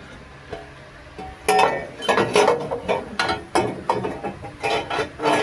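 Metal clanking and knocking as an exhaust header is worked up into place against the engine for a test fit. Quiet at first, then from about a second and a half in a rapid string of sharp metallic knocks, each with a short ring.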